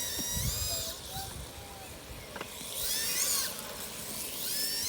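A 3D-printed 1:10 RC drift car's electric motor whining as the throttle is blipped. The whine rises and falls three times: at the start, about three seconds in, and near the end.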